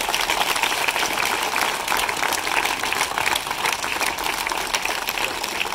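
A large crowd of schoolchildren applauding steadily, with many hands clapping at once.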